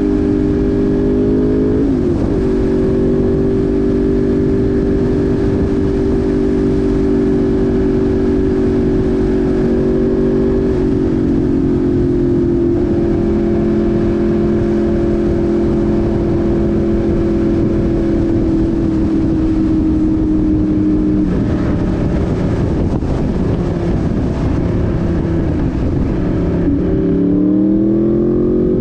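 Yamaha YZF R1 sport bike's inline-four engine running at steady riding speed under constant wind and road noise. Its pitch shifts a few times and climbs near the end as the bike accelerates.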